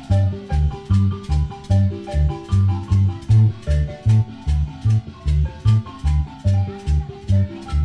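Instrumental Latin dance music with a marimba-like mallet melody over a steady, heavy bass beat.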